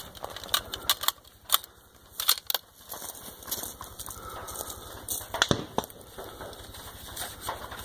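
Scattered clicks, knocks and rustles from a scoped bolt-action rifle and gear being handled against a wooden barricade as the shooter settles into a firing position. The two loudest knocks come about a second and a half in and around five and a half seconds in.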